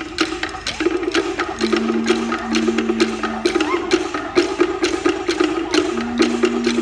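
Cook Islands drum ensemble playing wooden slit drums (to'ere) with sticks: a fast, dense rhythm of sharp, ringing wooden strikes. A low steady held tone sounds underneath twice.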